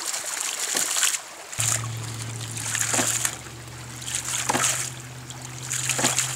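Ram pump cycling: water spurts out of its weighted waste valve in bursts about every second and a half, each with a sharp clack of the valve. A steady low hum joins about one and a half seconds in.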